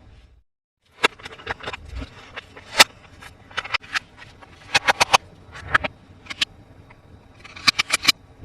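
Sharp plastic clicks and taps from handling toy action figures and their packaging, some coming in quick clusters, after a brief dead silence near the start.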